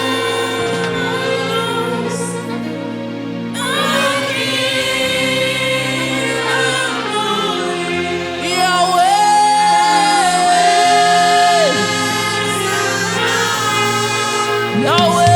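Live gospel worship music: a choir sustaining a held chord over band accompaniment with steady bass notes, and a single voice holding a long high note partway through.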